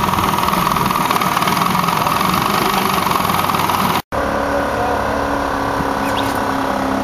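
A boat engine running steadily, broken by a short silent gap about four seconds in. After the gap an engine idles somewhat more softly, with an even hum.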